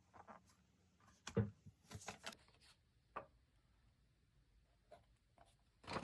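Paper and small stationery items handled on a desk for diary decorating: soft rustles and light taps, with a low thump about a second and a half in and another near the end.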